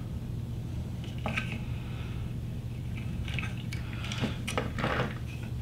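Small plastic clicks and rustling as a wiring-harness connector on a 3D printer's extruder assembly is worked loose by hand, a few light ticks spread through, over a steady low hum.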